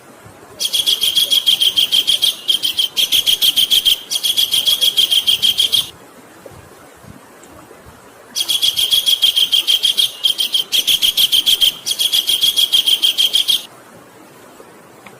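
Javan kingfisher giving its rapid rattling call, a fast run of about seven or eight sharp, high notes a second. It calls in two long bouts, each broken into three runs by brief pauses.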